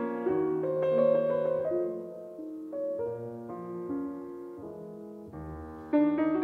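Soft, slow piano music: single notes and chords that ring and fade one after another. The music grows quieter in the middle and comes in louder again near the end.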